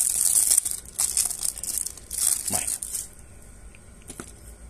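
Plastic wrapping on a card deck being torn open and crinkled, in three rustling bursts over the first three seconds.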